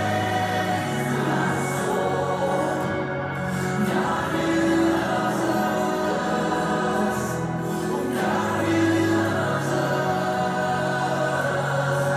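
Choral music: voices sing long held chords that change about every four seconds.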